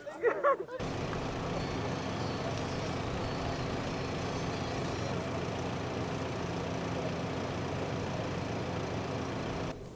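A woman wailing briefly at the start, then a truck engine running steadily at idle, an even mechanical drone that cuts off shortly before the end.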